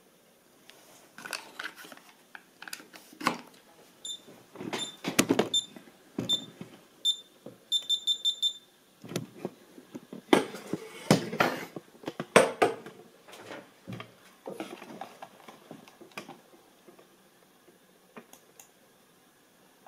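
Knocks, clatter and rustling of things being handled on a desk, with a run of short high electronic beeps partway through: a few spaced single beeps, then a quick string of about six.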